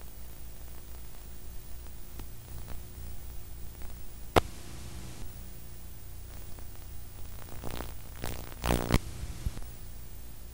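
Steady hiss and low hum of a blank video recording. A sharp click comes about four seconds in, and a brief louder buzzing crackle near the end.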